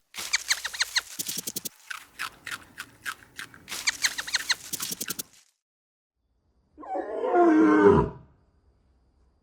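Farm animal calls: a rapid string of short, clipped calls for about five seconds, then after a pause a single loud call that falls steeply in pitch.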